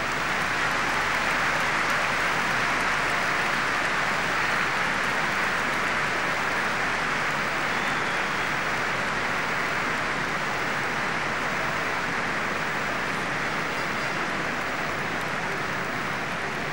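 A packed football stadium crowd applauding steadily through a minute of remembrance, a dense, even clapping that swells up at the start and holds.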